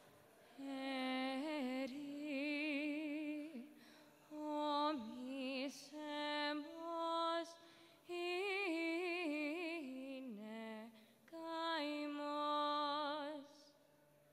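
A woman singing solo: a slow, heavily ornamented melody with a wavering voice, sung in short phrases separated by brief pauses.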